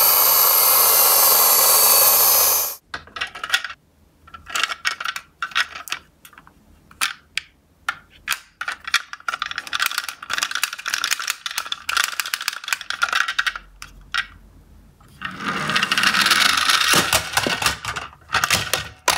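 Plastic toy garbage trucks clattering and knocking against each other and the cardboard box as they are handled, in many short irregular clicks and knocks. A steady noise at the start cuts off suddenly about three seconds in, and the clatter gets denser and busier near the end.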